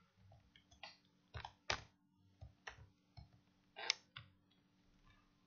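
Faint computer keyboard keystrokes: about ten separate taps at an uneven pace, stopping a little after four seconds in.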